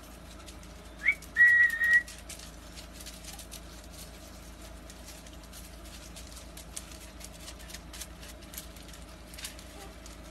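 A person whistling: a short rising whistle about a second in, then one held, steady note for about half a second.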